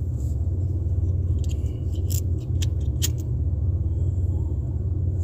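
Steady low rumble of a car running, heard inside the cabin, with several sharp clicks between about one and a half and three seconds in from a lighter being struck; its flame is lit by about four seconds in.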